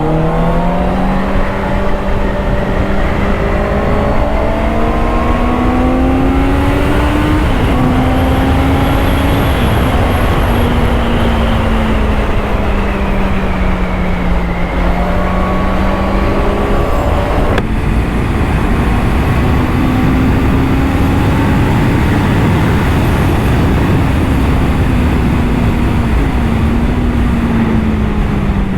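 Honda CBR650R's inline-four engine under way, its pitch climbing as it accelerates, easing off and falling through the middle, then rising again and holding steady, over heavy wind rush on the microphone.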